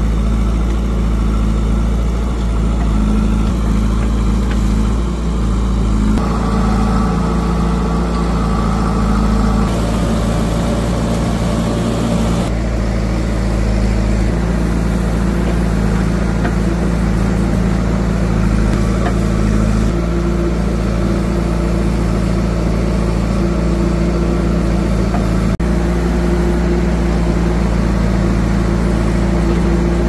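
Heavy diesel engine of farm and construction machinery running steadily at a low, even speed. Its tone shifts abruptly a few times.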